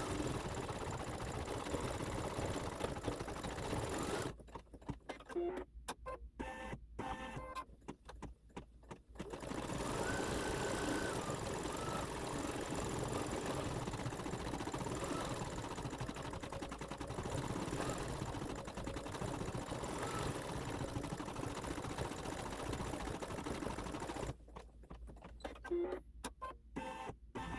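Computerized embroidery machine stitching out the reindeer's hooves, a steady fast rattle of the needle. It cuts out twice: about four seconds in for around five seconds, and again near the end.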